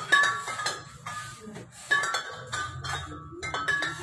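Glass crystals of a hanging chandelier clinking and jingling again and again in short irregular strikes, set swinging by earthquake shaking.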